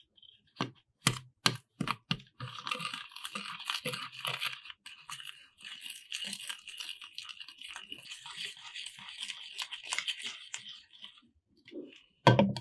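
Handheld battery milk frother beating egg yolks in a plastic bowl: a few sharp clicks at first, then about eight seconds of fast, fluttering buzz as the coil whisk spins in the yolks. A loud knock near the end.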